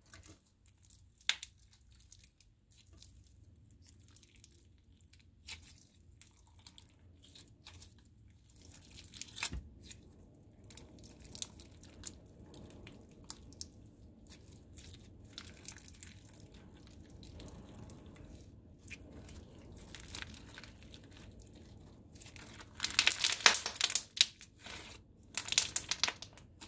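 Thick clear slime packed with sprinkles and clay charms being squished, kneaded and stretched by hand. It gives off crinkly, crackling pops and clicks, with a louder run of crackling near the end.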